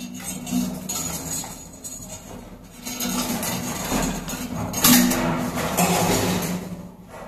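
Irregular clinking and scraping from hands-on electrical wiring work, with a cable being handled and drawn along. The clatter is busiest from about three seconds in until near the end.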